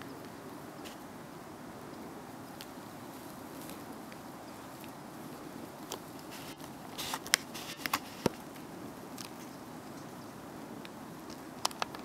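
Steady outdoor background hiss with a few scattered sharp clicks and taps, several close together about seven to eight seconds in and a couple more near the end.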